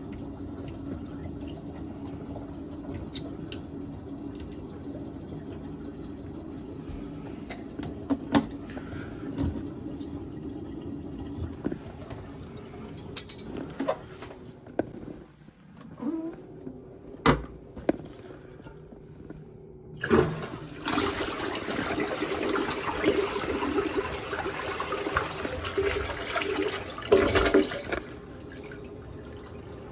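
Toilet tank with newly fitted TOTO flush valve and fill-valve parts: water hissing in the tank with a steady hum, then knocks and clicks of the parts being handled, and about two-thirds of the way in a flush, a loud rush of water lasting several seconds before falling back to a steady refill hiss.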